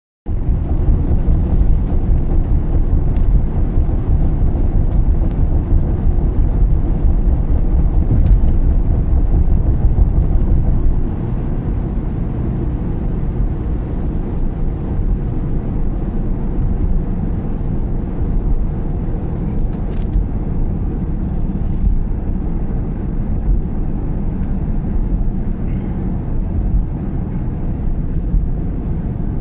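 Steady low rumble of a car's tyres and engine heard from inside the cabin while driving, dropping slightly in level about eleven seconds in.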